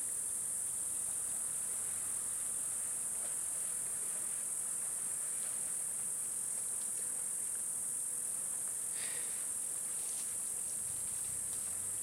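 Steady high-pitched insect chorus, an unbroken shrill buzz.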